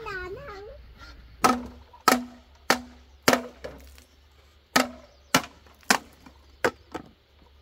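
Long hollow bamboo pole rammed end-first into the ground again and again: each stroke is a sharp knock with a short hollow ring from the tube, roughly one every half second, in two runs with a pause of about a second in the middle.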